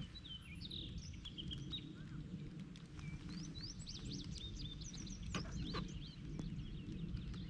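Small birds chirping, a rapid run of short high notes, over a steady low rumble. Two sharp knocks a little past halfway.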